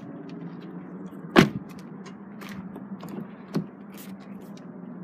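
Car door shut with a single solid thunk about a second and a half in, then a lighter knock near three and a half seconds, over a steady low hum.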